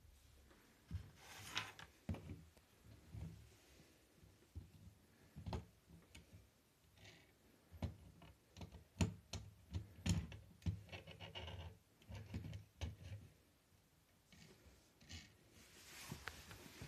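Small plastic building-brick model handled by hand and moved about on a wooden tabletop: scattered light clicks and knocks with bits of rubbing, the sharpest knocks about halfway through.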